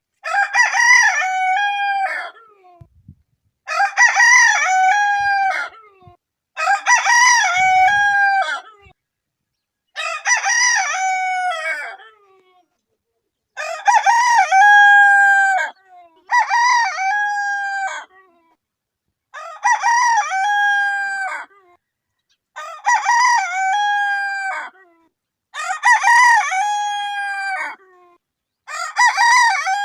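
Rooster crowing again and again, about ten full crows, each about two seconds long, with a short pause between them.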